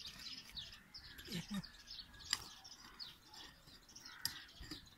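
Small birds chirping over and over in short, quick notes, with two sharp clicks, about two seconds in and about four seconds in.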